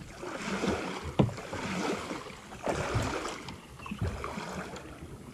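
Paddling a sit-on-top fishing kayak: water splashing with the strokes, and a few sharp knocks on the hull.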